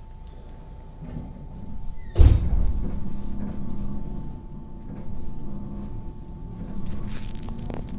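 Inside a JR West 221 series electric train: steady low cabin hum, broken about two seconds in by a sudden loud thud, then uneven low rumbling with hums that come and go.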